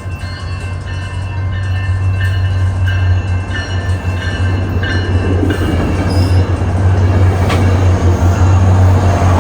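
A large vehicle running, a steady low hum with thin whining tones above it, growing louder over the first half and staying loud, with one sharp click late on.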